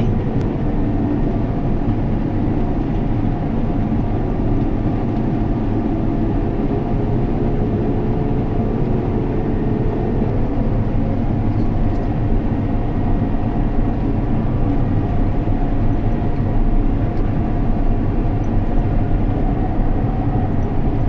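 Harvest machinery's engine running steadily, a constant low drone with a steady hum.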